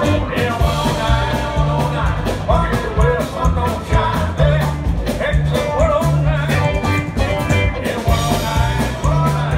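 Live honky-tonk country band playing with a steady beat: electric guitar and pedal steel guitar over an upright bass line and a drum kit.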